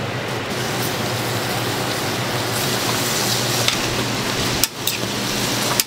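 Hotteok frying in oil on a flat griddle, a steady sizzle like rain, with a few light clicks and a low steady hum underneath.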